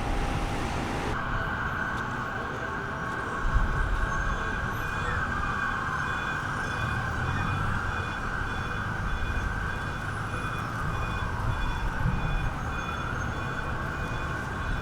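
Emergency vehicle siren wailing in slow rises and falls over a steady rumble of street traffic.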